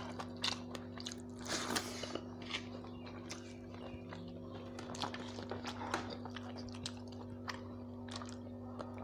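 Hand mixing rice on a steel plate: soft squishing with scattered clicks and scrapes of fingers on the metal, busiest in the first two seconds, over a steady low hum.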